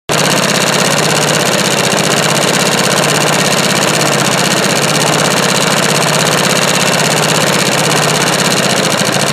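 Industrial embroidery sewing machine running steadily at speed, its needle bar stitching in a fast, even rhythm as it sews lettering.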